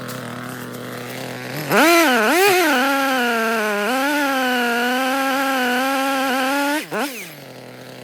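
Echo CS-3510 two-stroke chainsaw idling, then throttled up to full revs about two seconds in and held there with the pitch wavering and dipping briefly, before dropping back to idle near the end with one quick blip of the throttle.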